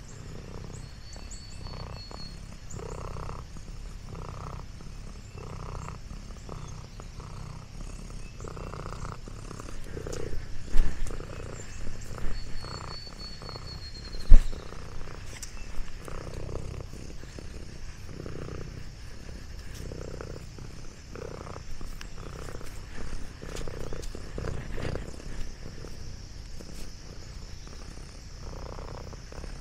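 Domestic orange tabby cat purring close to the microphone, in an even rhythm of breaths. Two sharp knocks near the middle are louder than the purr.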